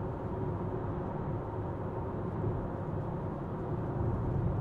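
Geely Galaxy 6 hybrid sedan driving: steady low road and running noise with a faint steady hum, growing a little louder near the end.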